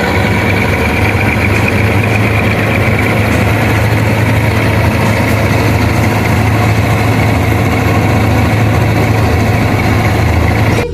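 Heavy farm diesel engine running steadily at constant speed, a loud even hum with a dense mechanical rush over it.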